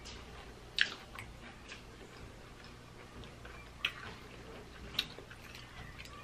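Close-up crunching of a fried chicken sandwich's crispy breading as it is bitten and chewed: a few separate sharp crunches, the loudest about a second in, others near four and five seconds.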